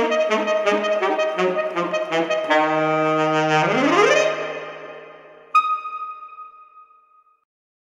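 Alto saxophone playing the close of a baroque-style piece over a backing track of electric bass, drums, synth and acoustic guitar: a run of quick repeated notes, then a held final chord with a rising glide, fading out. About five and a half seconds in, a single bright struck note rings and dies away.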